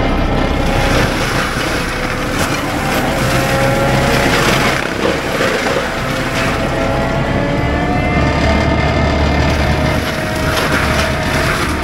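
Cat 299D3 compact track loader's diesel running hard while its Fecon BlackHawk forestry mulcher head spins, a steady whine drifting slightly in pitch, with surges of grinding as the mulcher's teeth chew through brush and small trees.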